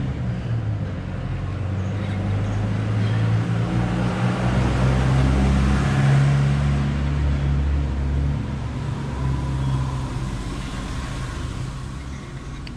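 A motor vehicle engine running, growing louder to a peak about six seconds in and then fading away.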